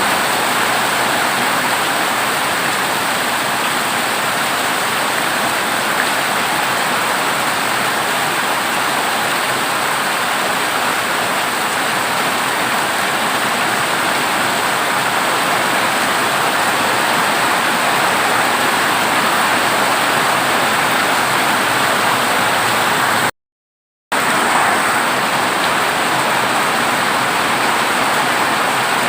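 Heavy rain drumming steadily on a corrugated zinc roof. It cuts out to silence for a moment about three-quarters of the way through, then carries on as before.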